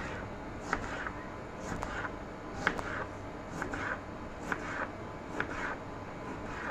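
Kitchen knife slicing through a tomato, the blade clicking against the cutting board with each cut, about a dozen short taps at an uneven pace.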